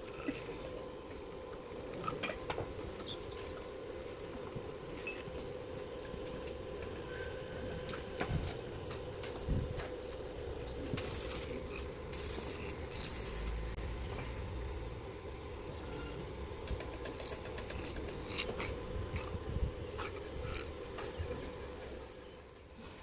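Workshop sound of a manual metal lathe: a steady motor hum with scattered light metallic clicks and clinks.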